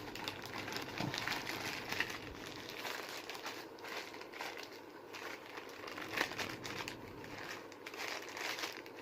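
Packaging crinkling and crackling as it is handled and opened by hand, a continuous run of small rustles and clicks.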